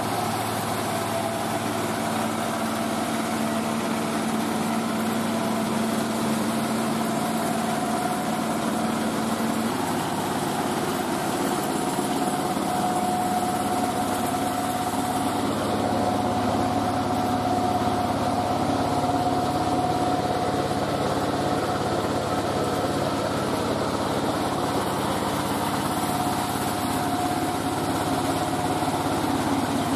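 Mobile rice mill's engine running steadily, driving the milling machinery. About ten seconds in, a low hum drops away and a higher whine becomes stronger.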